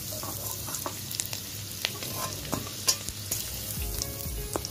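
Oil sizzling in a steel kadhai around shallow-fried boiled potatoes, with a metal spoon clicking and scraping against the pan several times as the potatoes are scooped out.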